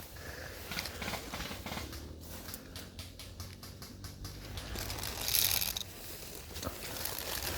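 Footsteps and rustling through dry leaves and brush, with a run of short crackling clicks in the middle and a brief louder rustle a little after five seconds.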